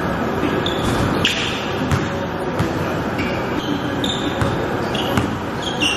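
A basketball bouncing on a hardwood gym floor, with short sneaker squeaks several times as players move.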